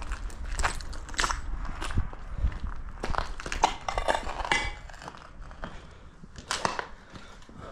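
Footsteps crunching over broken tiles and rubble, with irregular crackles and scrapes of debris underfoot.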